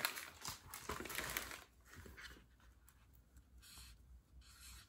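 Marker writing on a paper page: a run of short scratchy strokes, loudest in the first second and a half, then fainter.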